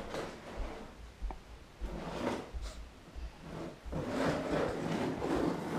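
A small plastic child's chair scraping and rubbing as it is pushed across a hardwood floor, in uneven patches, with soft thumps of footsteps.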